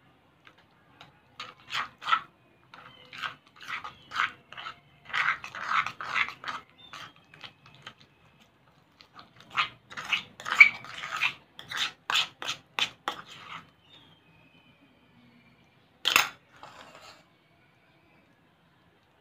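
Metal spoon stirring thick glue-and-borax slime in a bowl: quick, irregular scraping and clinking strokes against the bowl. A single louder knock comes near the end.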